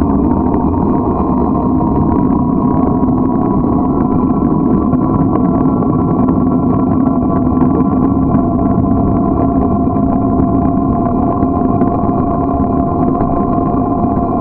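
Steady rumble of wind on the microphone and road noise from riding along a paved road, a dense, unbroken noise with a few faint steady tones in it.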